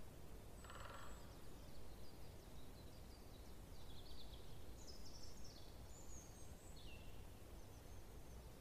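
Faint woodland birds calling: scattered short, high chirps and one louder, buzzier call about a second in. Beneath them runs a steady low rumble of distant motorway traffic.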